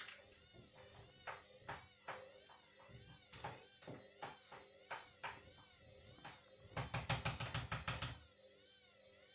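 Candy washing machine turning its drum to spread an unbalanced load: a motor whine wavers up and down in pitch over a steady hum, with irregular knocks from the drum. A rapid run of loud knocks comes about seven seconds in.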